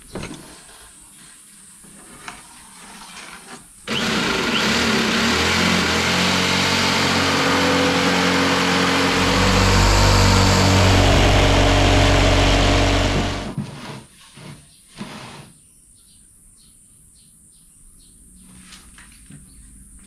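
Electric jigsaw switched on and sawing through 13 mm plywood for about nine seconds, starting suddenly a few seconds in and cutting off, followed by a few light knocks.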